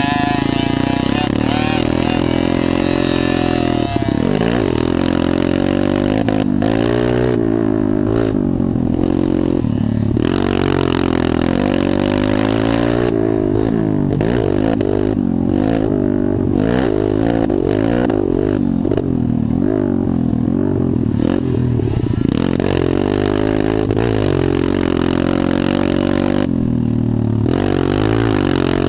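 Motocross dirt bike engine heard from on the bike, revving up and down over and over as the throttle is opened and closed around the track.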